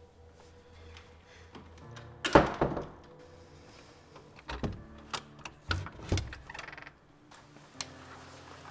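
Thumps on a wooden door: a quick run of loud knocks about two seconds in, then a few softer single thumps.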